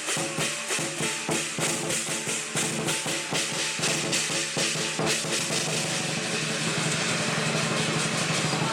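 Lion dance percussion: a big drum with clashing cymbals beating a steady rhythm of about three to four strokes a second, breaking into a fast continuous roll about six seconds in.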